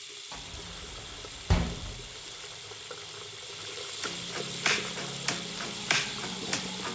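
Running shower water, a steady hiss of falling water, used as a recorded effect at the start of a song. A low thump comes about a second and a half in, and from about four seconds in soft beats and faint notes join at a slow, even pulse.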